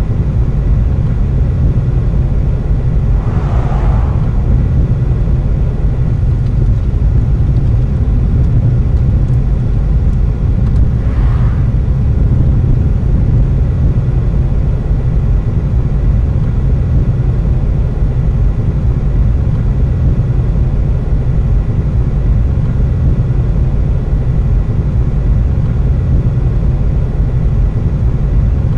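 Steady low rumble of a car driving on a country road, heard from inside the cabin. Two brief whooshes of passing vehicles come about three and eleven seconds in.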